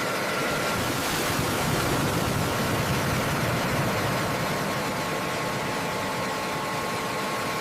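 Jet aircraft engine noise: a steady rush of noise with a faint, even whine, starting and stopping abruptly.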